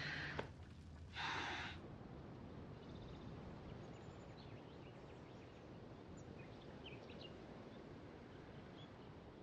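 Faint outdoor ambience with scattered, faint bird chirps. Two short breathy rushes of noise come within the first two seconds.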